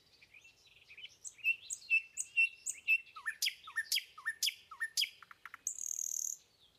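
Birds chirping: a run of quick high chirps, then several swooping whistled calls, and near the end a short harsh buzzy call.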